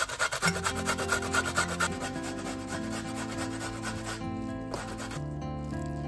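Carrot being grated on a metal box grater: a quick run of rasping strokes, strongest in the first two seconds and dying away, over soft background music.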